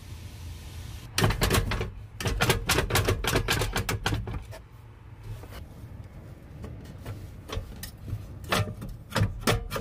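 Ratchet wrench clicking in quick runs of strokes: one run starts about a second in and lasts some three seconds, and another comes near the end.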